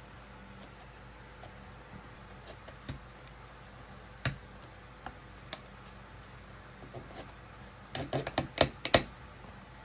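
Light clicks and taps of small wooden model-kit parts as wall panels are pressed into place between the pillars: scattered single taps, then a quick run of sharper clicks about eight to nine seconds in.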